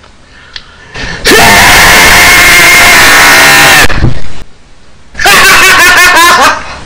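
A man's high-pitched, shrieking laugh, boosted until it distorts harshly: one long held shriek of about two and a half seconds, then after a short pause a second, shorter burst of rapid cackling.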